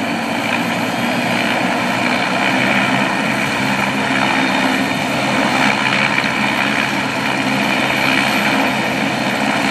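A helicopter running on the ground after an emergency landing, its engine and rotor making a steady drone.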